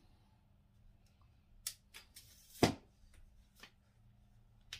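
Camera tripod being handled and adjusted: a few light clicks and clacks from its legs, plastic leg braces and locks, with one louder knock a little past halfway and more clicks near the end.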